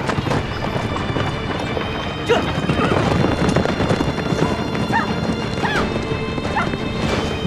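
Horses galloping, a dense clatter of hooves, over dramatic background music.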